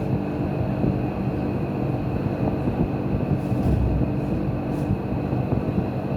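A motor or engine running steadily: a dense low rumble with a faint high whine held on one pitch.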